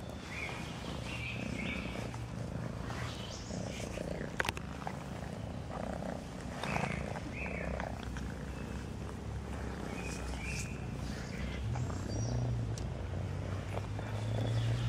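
Domestic cat purring steadily while being stroked by hand, the purr growing louder near the end. A few short high chirps and one sharp click about four seconds in.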